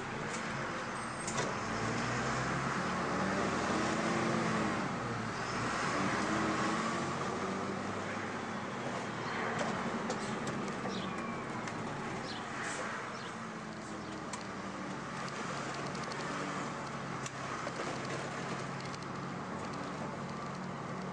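MAN 12.223 bus's diesel engine running as the bus drives along, heard from the driver's seat, with its note shifting as it pulls away and eases off, over steady tyre and road noise.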